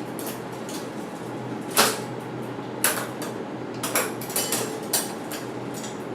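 Several sharp metallic clicks and knocks from hands-on work on a mountain bike drivetrain, about five spread over a few seconds, over a steady low hum.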